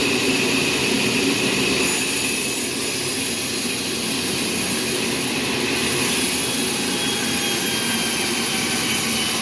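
Sawmill machinery running with a loud, steady mechanical noise and a faint steady whine.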